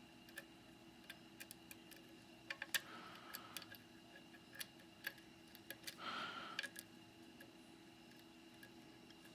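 A dimple pick clicking and scraping against the pins inside a Securemme K2 10-pin dimple lock cylinder held under tension, with scattered faint ticks and two short scrapes about three and six seconds in.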